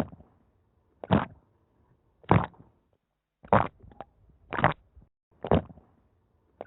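Water-in-the-ear sound effect: short wet squelches repeating about once a second, with faint clicks between them.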